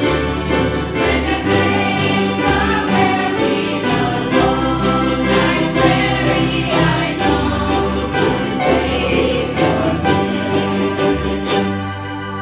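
A small group singing a hymn together, accompanied by ukuleles and an acoustic guitar strummed in a steady rhythm. Near the end the strumming stops and the last chord rings on and fades.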